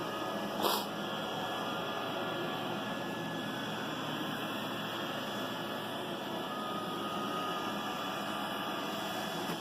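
iRobot Roomba 960 robot vacuum running across carpet: a steady whir of its suction fan and brushes. A faint higher tone joins in for a few seconds in the second half.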